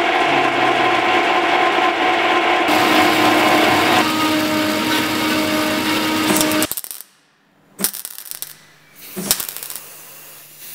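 Metal-cutting band saw cutting through a chrome-plated steel dumbbell handle: a loud, steady grinding with a whining tone that shifts pitch a couple of times. It stops abruptly about seven seconds in, and a few sharp clicks and a low hum follow.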